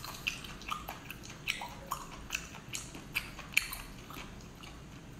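Biting and chewing on a tough braised octopus: a string of short, wet mouth clicks and smacks about every half second, thinning out toward the end.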